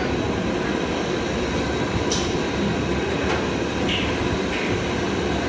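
Steady low roar of a commercial gas wok burner running under a pan, with a few brief light clicks about two, four and four and a half seconds in.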